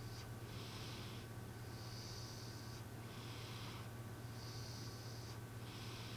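Domestic cat snoring in its sleep, a human-like snore: slow breaths in and out, each a soft hiss, about two full breaths, over a steady low hum.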